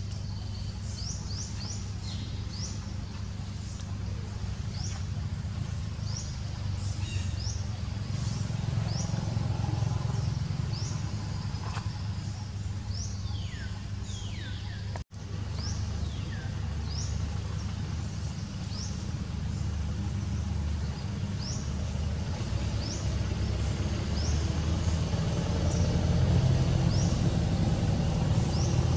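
Outdoor ambience: a steady low rumble with a bird repeating a short, high, rising chirp about once a second, and a brief cut-out of the sound about halfway.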